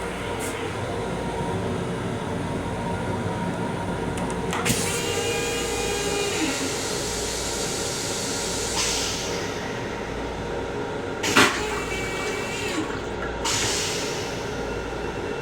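Running noise inside a Long Island Rail Road M7 electric railcar: a steady rumble and hum. Several sharp clicks and a few short whining tones cut through it, the loudest click about two-thirds of the way in.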